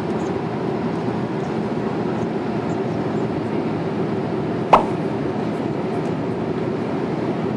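Steady rumbling cabin noise of a Boeing 787 airliner, engines and airflow heard from inside the passenger cabin, with one sharp click a little past halfway.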